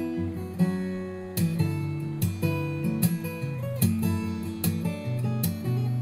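Background music: an acoustic guitar strumming chords at an easy pace, each strum ringing on.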